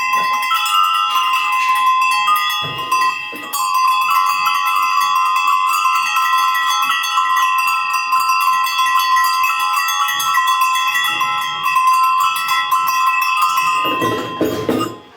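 A bunch of metal livestock bells jangling continuously together, each ringing at its own clear pitch so that several notes sound at once. Near the end the ringing dies away into clinking and clattering.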